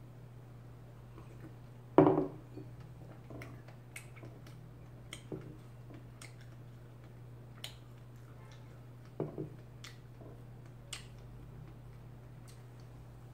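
Ceramic mug set down on a wooden table with one loud knock about two seconds in, and a softer double knock later. Small sharp clicks of chewing and lip sounds fall in between, over a steady low hum.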